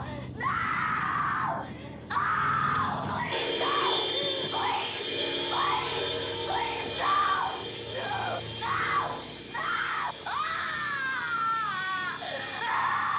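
A young woman screaming in terror, cry after cry, each long and wavering in pitch. About three seconds in, music comes in underneath and continues with the screams.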